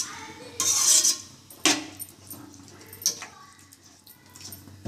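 Metal ladle scraping and knocking against a metal cooking pan while stirring thick gravy: a rasping scrape about a second in, then a few sharp clinks.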